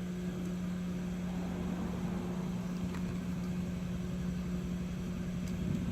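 Steady electrical hum of running workbench equipment, one unchanging pitch over a low hiss, with a faint click about three seconds in.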